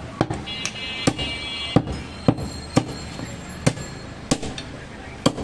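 Heavy butcher's cleaver chopping through goat leg meat and bone onto a wooden tree-trunk block: about nine sharp chops, roughly two a second at an uneven pace.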